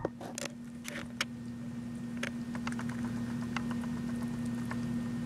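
Hamster eating from a ceramic bowl: irregular small clicks and ticks as it picks up and nibbles seeds and pellets, several close together in the first second and then sparser, over a steady low hum.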